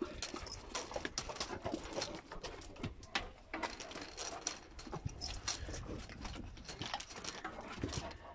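A Cane Corso and a German Shepherd play-fighting: irregular scuffling and clicking, with the rattle of the Cane Corso's leash chain, mixed with the dogs' short play vocalisations.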